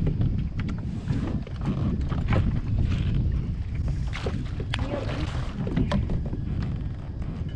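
Wind rumbling on the microphone, with scattered sharp knocks and splashes as a smallmouth bass is landed at a fishing kayak.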